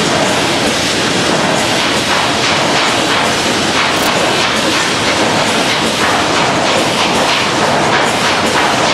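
Packaging machinery running in a factory hall: a loud, steady din with constant irregular clattering.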